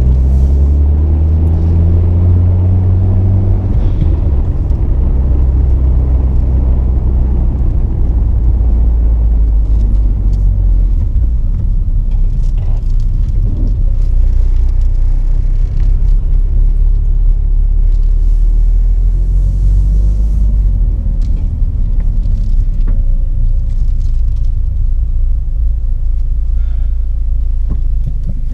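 Mitsubishi Lancer Evolution X's turbocharged four-cylinder engine running, a heavy, steady low rumble whose pitch rises over the first few seconds.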